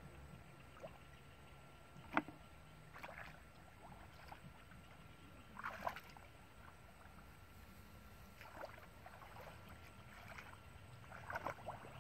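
Wading and groping by hand in shallow muddy paddy water: scattered short splashes and sloshes, with a sharp click about two seconds in.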